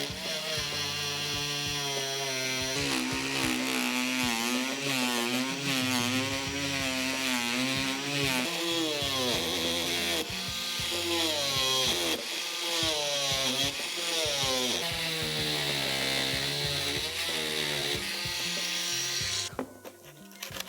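A small power cutting tool cutting notches into a plastic door panel. Its pitch wavers up and down as the blade loads into the material, and it stops abruptly near the end.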